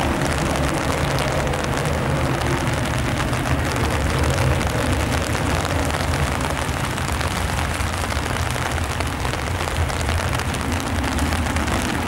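Steady roar of the CRJ-900's two rear-mounted General Electric CF34 turbofans at climb power as the jet climbs away after takeoff, heavy in low rumble with a hissing top.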